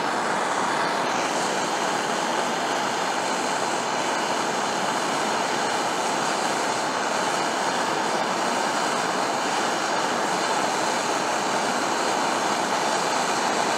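Handheld gas torch flame hissing steadily while heating aluminum filler rod onto an outboard gearbox skeg.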